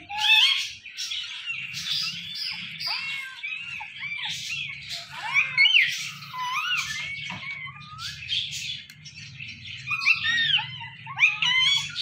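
Parrots chirping and squawking in a rapid, unbroken run of short calls that swoop up and down in pitch, over a faint low hum.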